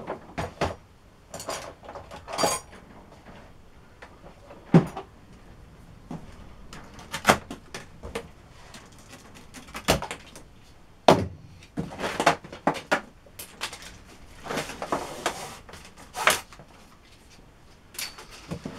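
Cardboard box being handled and opened: irregular knocks, clicks and scrapes of cardboard and plastic packing straps being worked off, with a few short rustling scrapes.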